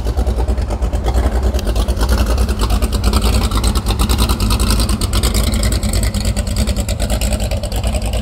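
Motorboat engine running hard at high throttle, a loud steady drone.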